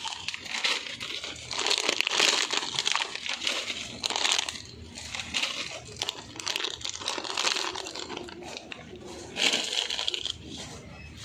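Foil snack packets crinkling in irregular bursts as they are grabbed and handled by hand.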